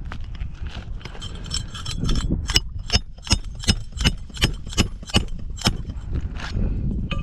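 A hammer striking metal in a quick, even run of about ten blows, close to three a second, each with a bright metallic ring, as a roofer works a nail or bar under an asphalt shingle. The run starts about two seconds in and stops near six seconds, followed by one or two separate knocks.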